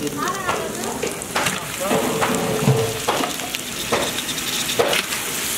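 Handfuls of raw mutton pieces dropping into a large pot of hot, frying masala gravy. There are several wet slaps about a second apart over a steady sizzle.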